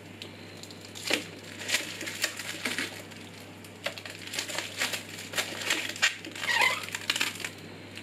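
Adhesive protective plastic film being peeled off a PC case's tempered-glass side panel, crackling and crinkling irregularly with a few louder snaps, then bunched up in the hand near the end.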